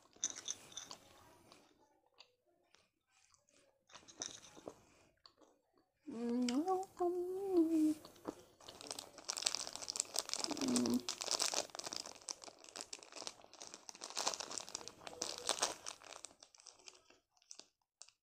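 Plastic sweet wrapper crinkling as a packet of Gems is torn open and handled, a dense run of rustles from about nine to sixteen seconds in. A short hum about six seconds in.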